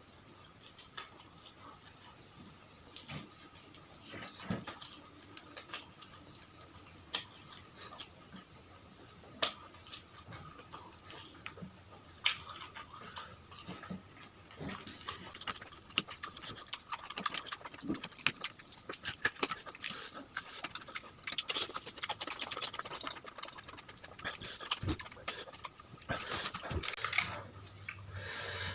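A person eating close to the microphone: wet chewing and lip smacking, with many short sharp clicks from the mouth and food, and breathing between bites.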